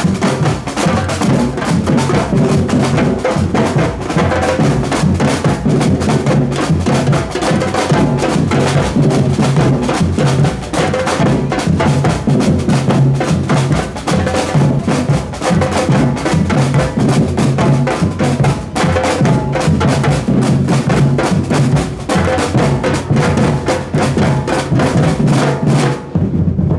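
Samba-reggae drum band playing a dense, driving rhythm of deep surdo bass drums with snare drums and higher-pitched hand drums. The ensemble stops sharply together near the end.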